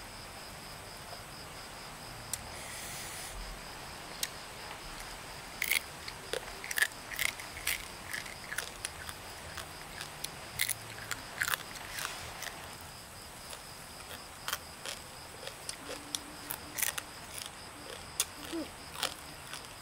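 Crisp, irregular crunching as a deep-fried scorpion is chewed, heard as clusters of short sharp cracks that start a few seconds in and come again near the end.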